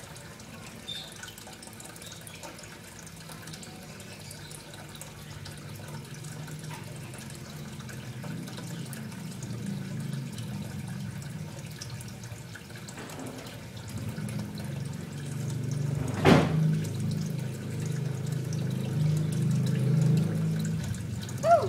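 Water running and trickling, getting louder through the second half. A single sharp knock about sixteen seconds in.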